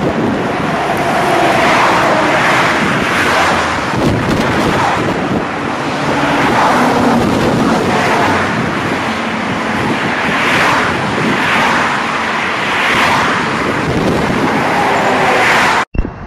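Cars and trucks passing close by on a busy multi-lane highway: steady tyre and engine noise that swells each time a vehicle goes by. The sound cuts out for an instant near the end.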